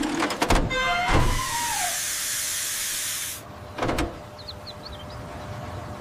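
Cartoon sound effects: two sharp knocks about a second in and a falling whistle-like tone, then a loud hiss that lasts about two seconds and stops abruptly, followed by another knock near the middle.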